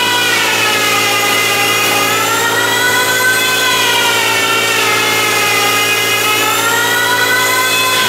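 Electric power tool cutting wood: a steady motor whine whose pitch sags and comes back up every couple of seconds as the tool takes and sheds load.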